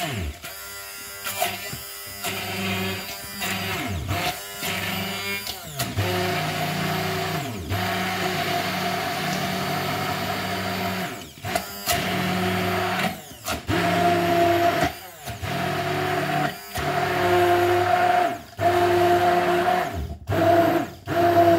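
NutriBullet immersion blender (NBI07110) motor running in a beaker of mostly frozen ingredients and almond milk, pulsed on and off every second or two, its pitch sliding as it stops and starts again. It is slow going through the frozen pieces.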